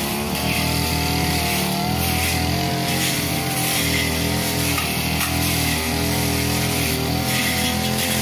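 Backpack two-stroke brush cutter (a 328-type) running steadily at high throttle while its blade cuts through tall, dense grass, the engine note wavering slightly in pitch.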